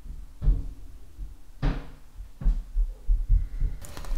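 Several dull, irregular knocks and bumps as a smartphone is handled and pressed against a wooden workbench. Near the end they give way to a faint steady hiss.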